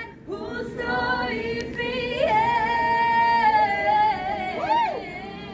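A woman's voice singing slow, long held notes with vibrato and little audible accompaniment; one note is held for about a second in the middle, and a sweeping rise and fall comes near the end.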